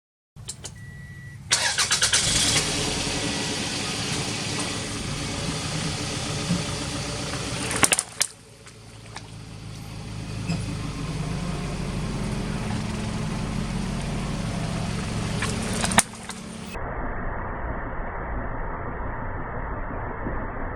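Car engine running, in several spliced-together clips, with a short sharp crack about eight seconds in and another near sixteen seconds.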